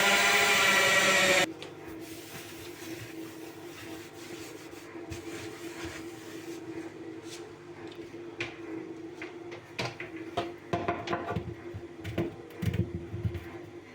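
Drill with a hole saw spinning at speed, stopping abruptly about a second and a half in. Then a low steady hum with light knocks and rubbing on the wooden cabinet, busier near the end.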